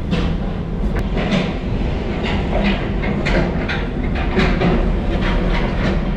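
Heavy diesel machinery running steadily while working in a steel cargo hold, with repeated sharp scraping and clanking two or three times a second.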